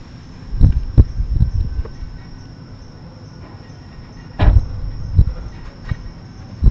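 Repeated dull bangs: three in quick succession near the start, a loud one past the middle, then two lighter ones. Crickets chirr steadily behind them.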